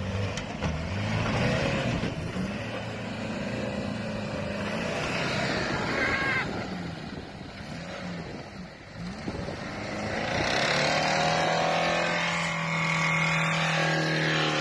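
Pickup truck's diesel engine running at high revs, its pitch wavering up and down, then holding steady and high from about ten seconds in. The engine is running away, overspeeding out of control.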